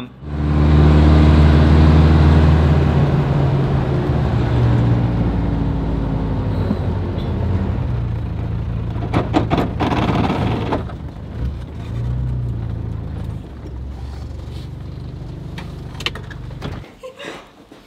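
Jeep engine running under way, heard from inside the cabin. It is loudest for the first few seconds, then settles, with a few knocks and rattles about nine to ten seconds in. It stops near the end.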